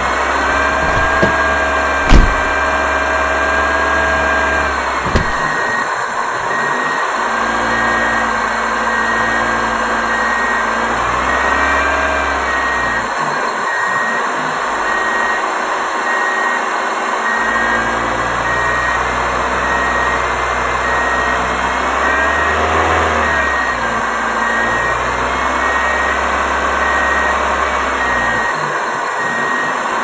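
Steady motor-like drone with tones that hold and glide in pitch, like a machine engine running. A sharp knock comes about two seconds in, and a faint high beep repeats from about a third of the way through.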